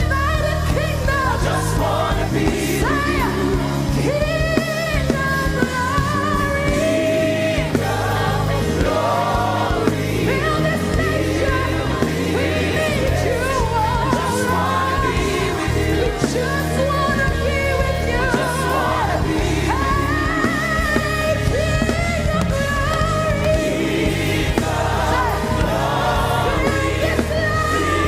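Live gospel worship music: singers holding wavering, drawn-out notes over a band with a steady bass line, without clear words.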